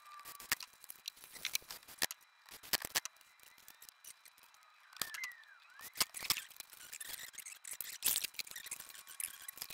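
Irregular small clicks and ticks of cables being wired into a power distribution panel: crimped ring terminals and wire ends handled, and plastic lever connectors opened and snapped shut.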